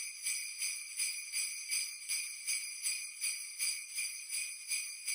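Sleigh bells jingling in a steady shaken rhythm, a little over two shakes a second.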